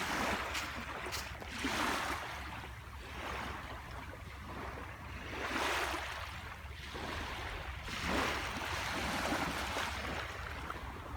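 Ocean waves washing onto a beach, a rushing surf that swells and falls back, with surges about 2, 6 and 8 seconds in, over a steady low rumble.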